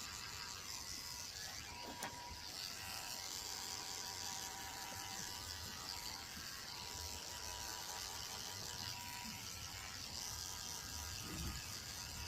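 Electric dog grooming clippers running steadily while shaving a dog's coat.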